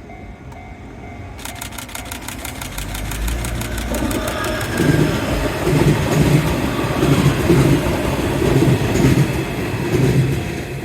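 A Nishitetsu 7050-series electric train approaches and passes over a level crossing while the crossing bell rings. Its wheels beat over the rail joints in a steady run of heavy clacks, loudest from about five seconds in, and fade near the end.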